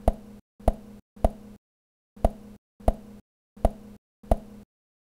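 Seven sharp knocks, roughly one every two-thirds of a second with a longer gap after the third. Each is followed by a moment of low hum and then cut off to dead silence.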